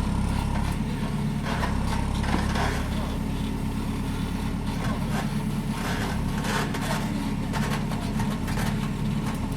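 Engine of a machine moving topsoil running steadily, with scattered scraping and knocking sounds over it.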